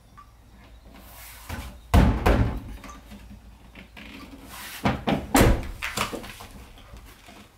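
Several heavy knocks and thumps on a Sprinter van's body as the trim pieces are hooked and pressed onto their clips. There is one loud thump about two seconds in, then three or four more in quick succession a few seconds later.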